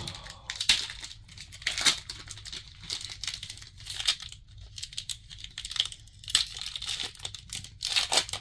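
Foil trading-card booster pack wrappers crinkling and cards being flicked and laid onto piles on a playmat: a string of short, irregular rustles and taps.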